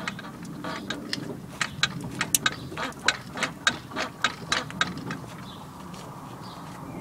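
Sharp light clicks and ticks, several a second, from the rear suspension of a 2001 Jaguar X-Type as the car is bounced on a trolley jack under the spring plate with the wheel hanging; they stop about five seconds in. The loud creak is absent, which shows the spring and shock absorber are not the cause and points to the control-arm joints linking the wheel.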